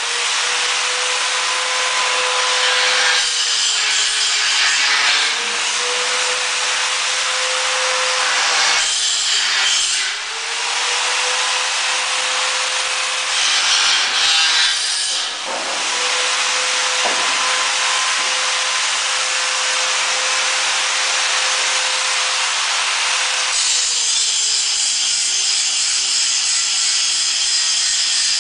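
Power tool running continuously with a steady whine, its pitch sagging during several stretches of harsher cutting noise, about three, nine and thirteen seconds in. Near the end the pitch slowly falls.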